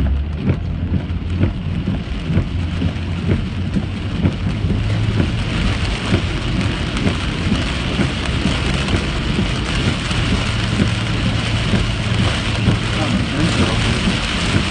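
Heavy rain drumming on a moving car's roof and windshield, heard from inside the cabin, over a steady low hum of engine and tyres on the wet road. The rain hiss grows louder about five seconds in.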